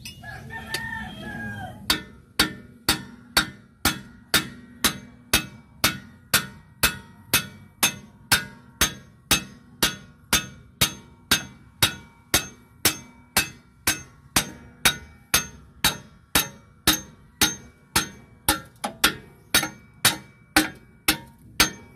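Hammer blows on a steel drift rod, about two a second and evenly paced, each with a short metallic ring, driving a part out of a truck's drum brake assembly. A rooster crows briefly just before the hammering starts.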